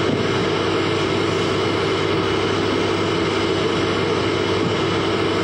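Steady, unchanging drone with a constant low hum and a steady mid-pitched tone, like a machine running without pause.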